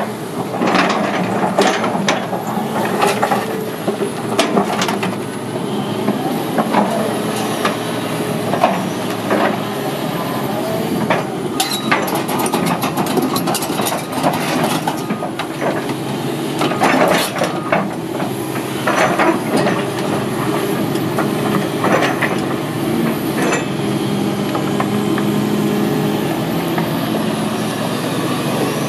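A 2013 Doosan DX300LC-3 excavator's six-cylinder diesel running steadily as the boom, arm and bucket are worked, with repeated metal clanks and knocks from the bucket and linkage. The knocks are thickest over the first two-thirds and thin out near the end.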